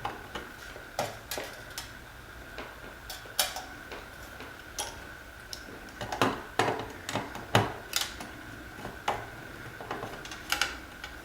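Irregular clicks and taps of a screwdriver and wire leads being worked at an alarm panel's screw-terminal strip, several in quick succession after about six seconds, over a faint steady high-pitched hum.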